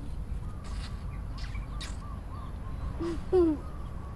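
Birds calling: scattered short, thin chirps and one short, louder call about three seconds in, over a steady low rumble.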